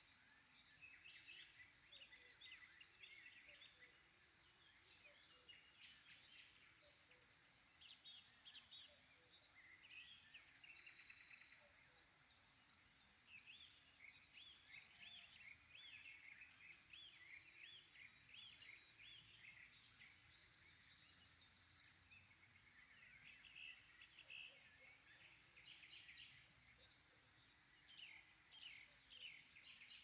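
Faint morning chorus of songbirds, several birds singing at once in quick repeated chirps and trills.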